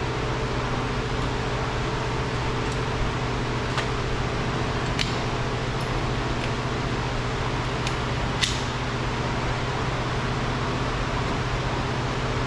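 Steady mechanical hum with a fixed pitch, with a few faint, sharp clicks from tool handling about four, five and eight seconds in.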